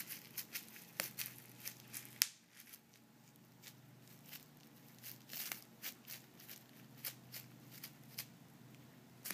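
Bubble wrap crinkling and crackling under a cat's paws: irregular sharp crackles and clicks, the loudest about two seconds in, followed by a short quieter gap.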